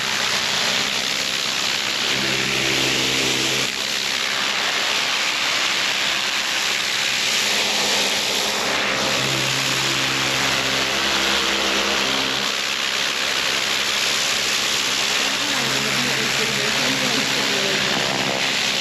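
A gas-engine pressure washer running, its high-pressure water spraying onto concrete with a steady hiss. The engine's drone swells three times and fades back under the spray.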